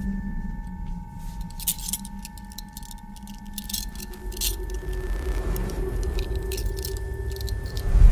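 A bunch of keys jangling in short bursts over a low steady drone. A held tone joins about halfway through and a hissing swell builds, then everything cuts off abruptly at the end.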